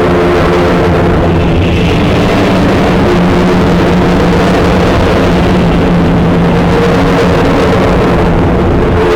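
Loud, harsh, steady noise with a low droning hum underneath.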